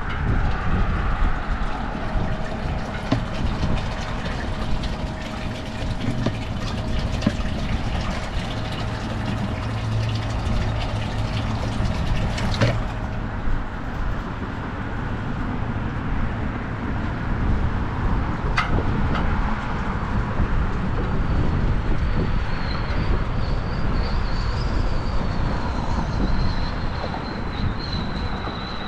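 Steady rumble of traffic on the neighbouring highway bridge, mixed with wind on the microphone. A steady hum through the first half ends with a sharp click near the middle.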